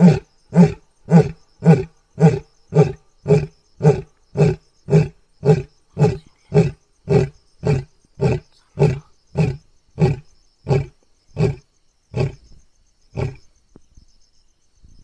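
Lion roaring: the tail of a roaring bout, a long run of deep grunting calls nearly two a second. They grow weaker and slower, and the last two come about a second apart near the end.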